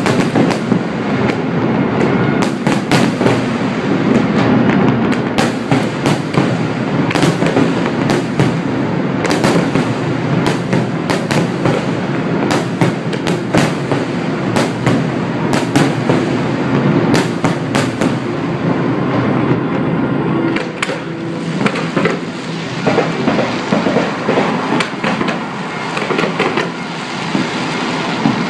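A large fireworks display: a dense barrage of bangs and crackling from bursting shells over a continuous rumble, thinning somewhat in the last third.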